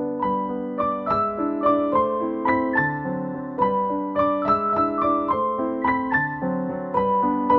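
Background piano music: a gentle melody of evenly paced notes, about three a second, each struck and left to ring.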